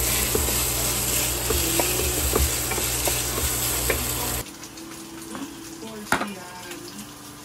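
Ground pork sizzling in a frying pan while a wooden spatula stirs it, with small scraping knocks. About four and a half seconds in the sizzle cuts off suddenly, leaving a much quieter stretch with one sharp click near six seconds.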